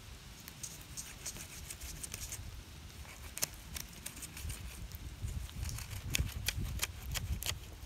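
Fillet knife slicing a fillet off a skinned bullhead, with a run of irregular small clicks and crackles as the blade works through the flesh and bones.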